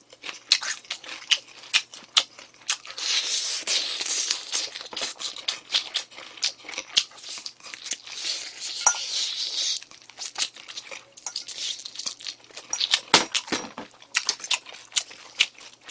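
Close-miked eating of glazed fried chicken: crunching and chewing the crispy coating, with many small crackles and clicks and a couple of longer crunchy stretches.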